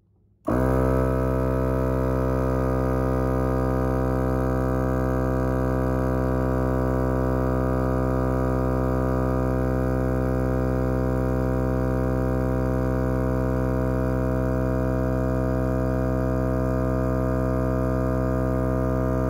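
Viair 88P 12-volt portable piston air compressor switching on about half a second in and running steadily at one even pitch while it pumps up a truck tire from about 30 PSI.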